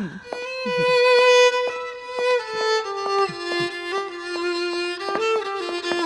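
Background score music led by a violin playing slow, long held notes, stepping down to a lower note about two and a half seconds in.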